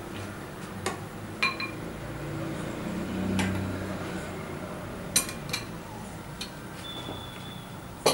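A metal spoon clinking against a glass bowl and a metal-rimmed serving dish as soaked dahi vadas are lifted out and laid down: about seven sharp, separate clinks, a few of them ringing briefly.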